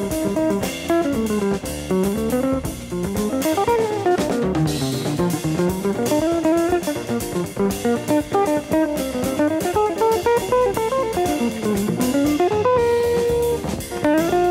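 Jazz record playing from a vinyl LP: a guitar plays fast single-note runs that climb and fall, over walking bass and drums, holding one note briefly near the end.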